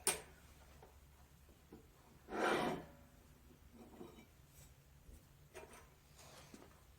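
Light handling of a steel square against a sawn steel piece on the bench: a sharp click right at the start, one short rub or scrape about two and a half seconds in, then a few faint taps.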